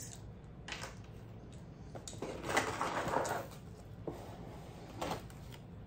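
Rustling of shredded paper filler as a hand rummages through a stuffed gift bag, lasting about a second from around two seconds in, with a few light clicks before and after.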